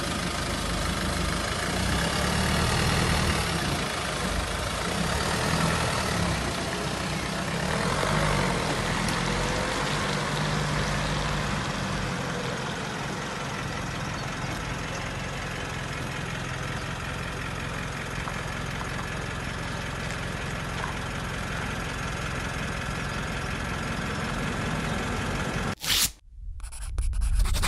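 Car engine running amid steady road traffic noise, fuller in the low end for the first dozen seconds and then steadier. The sound cuts off abruptly near the end.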